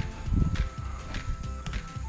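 Background music with a steady beat, held high notes over a bass line.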